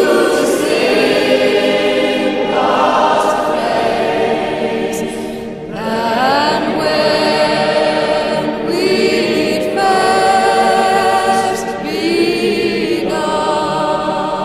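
Choir singing a slow hymn, with long held notes that change every two or three seconds.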